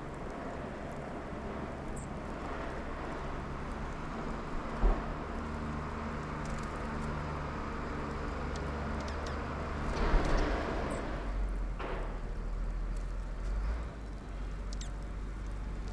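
Steady low outdoor rumble of distant traffic. It swells as a vehicle passes about ten seconds in. There is a single knock about five seconds in and a few brief, faint high bird chirps.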